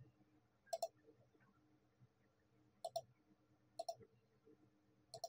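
Computer mouse button clicking four times, single clicks a second or two apart over near silence, as knife-tool cut points are placed on a mesh.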